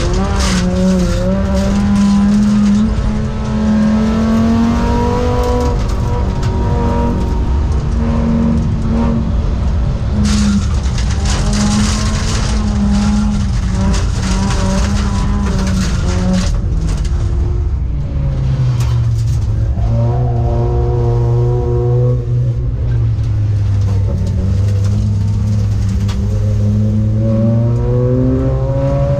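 Volvo 850 stock car's five-cylinder engine running hard while racing, held at a steady high pitch for a long stretch, then dropping lower a little past halfway and climbing again near the end.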